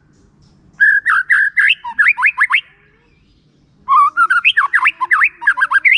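White-rumped shama singing two loud phrases of rapid, sweeping whistled notes: the first about a second in, the second about four seconds in.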